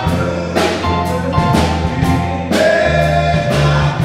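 Men's gospel group singing in harmony with band backing: bass notes and drums keeping a steady beat.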